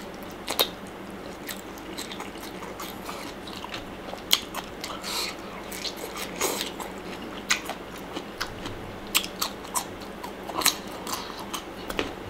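A person chewing and crunching a mouthful of spicy Thai pounded salad with blanched shrimp and raw leafy greens. Irregular crisp crunches and wet clicks come at uneven intervals.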